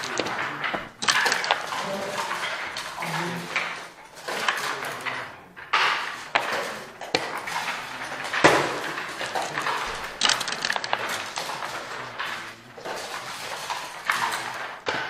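Backgammon checkers and dice clacking on the board as a game of long nardy is played: a busy run of sharp clicks and short clatters.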